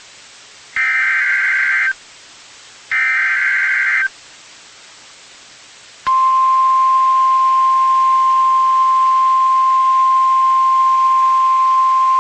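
Emergency Alert System SAME header on NOAA Weather Radio: raspy digital data bursts about a second long, repeated two seconds apart, the last two of three. About six seconds in comes the steady single-pitch 1050 Hz warning alarm tone, which announces that a warning message follows.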